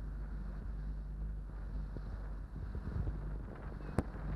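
Johnson 90 hp V4 two-stroke outboard running steadily while the boat is underway, with wind buffeting the microphone. A few thumps come about three seconds in, and a sharp knock near the end.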